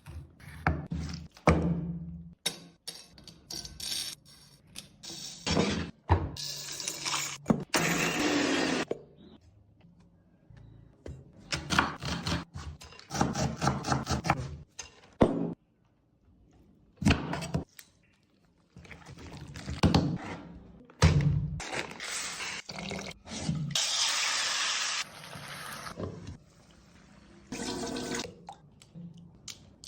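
Kitchen cooking sounds in quick succession: liquid pouring or running in several stretches of a few seconds, between knocks and clatters of utensils and pans.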